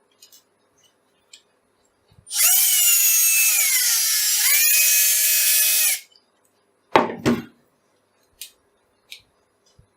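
A small electric drill runs for about three and a half seconds, drilling a hole in soft plastic; its whine sags in pitch as the bit bites, then picks up again before it stops suddenly. Two sharp knocks follow about a second later.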